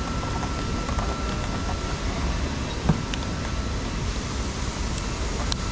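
Steady mechanical hum and rumble of workshop background noise, with a few light metallic clicks about halfway through and near the end as a screwdriver pries at the band clamp on an old CV-joint boot of a drive shaft.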